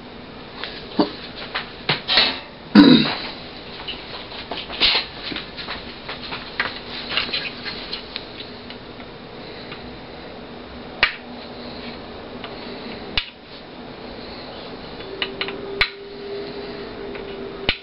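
Hands handling a TV power-supply circuit board on a tabletop while fitting replacement capacitors: scattered clicks, taps and scrapes. The loudest is a cluster of knocks about two to three seconds in, with a few sharp clicks later.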